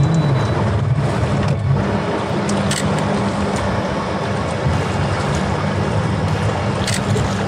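A boat motor running steadily at low speed, a continuous low hum with water and air hiss over it.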